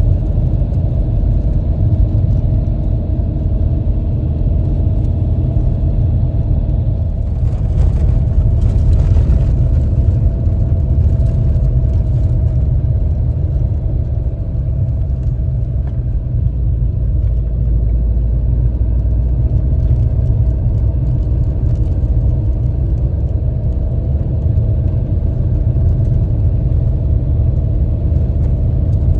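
A vehicle engine running with a steady, heavy low rumble, and a brief rattling hiss about eight seconds in.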